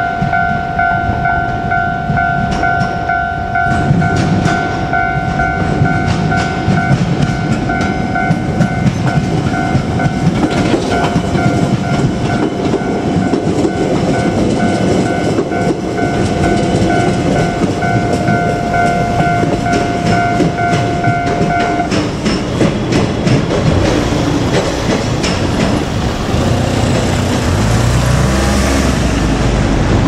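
Japanese level-crossing warning bell ringing in a fast, repeating electronic two-note tone while a JR Kyushu 817-series electric train rolls over the crossing, its wheels clacking over the rail joints. The bell cuts off suddenly about two-thirds of the way through as the train moves away. Near the end a car engine rises in pitch as a car pulls across the crossing.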